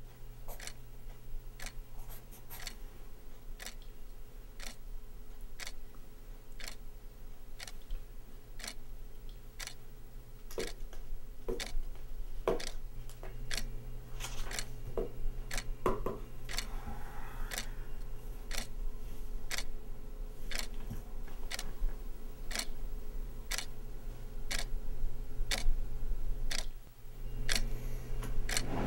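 Wall clock ticking steadily, about two ticks a second, with a few soft knocks and a brief paper rustle from papers and a pencil handled on a desk.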